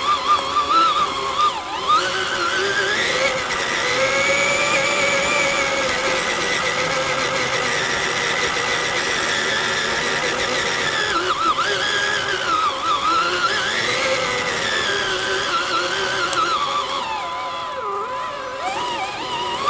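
Tamiya TXT-1 RC monster truck's electric motors whining as it drives, the pitch rising and falling with the throttle, several times over.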